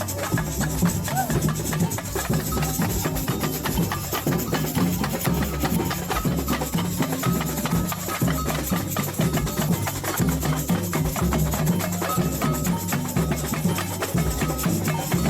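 Samba music with a dense, driving percussion beat of drums and shakers.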